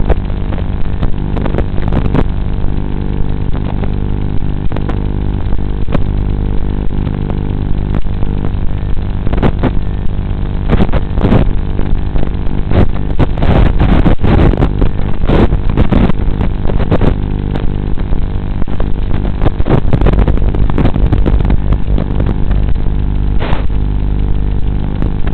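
Audio from a racing quadcopter's onboard feed: a steady buzzing hum with many even overtones that does not change pitch, broken by frequent short noisy swells, most often in the middle of the stretch.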